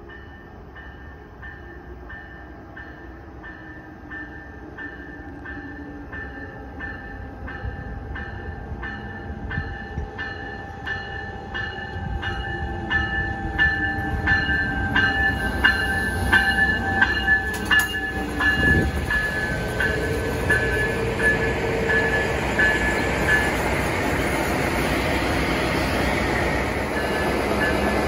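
Amtrak Midwest passenger train approaching and running past, with a bell ringing steadily about one and a half strikes a second that grows louder as the train nears. From about twenty seconds in, the rumble of the passing train takes over.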